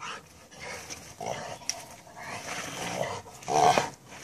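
A Rottweiler playing with a brick on bare dirt: scuffing of its paws and the brick, its breathing, and one short vocal sound from the dog about three and a half seconds in.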